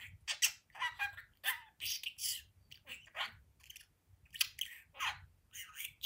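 Blue budgerigar chattering in a fast run of short, high-pitched, speech-like notes, two or three a second with brief pauses.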